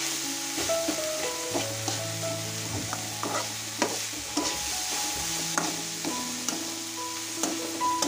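Vegetables being stir-fried in an aluminium kadhai: a metal spatula scraping and knocking against the pan about twice a second over a steady sizzle of oil. Held tones of faint background music change pitch underneath.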